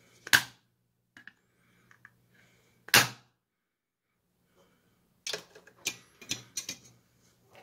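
Two sharp knocks about two and a half seconds apart: the BITX40 circuit board struck against the workbench right after heating a joint, to fling molten solder out of a crystal's holes, a harsh desoldering technique. A run of lighter clicks and knocks follows as the board is turned over and handled.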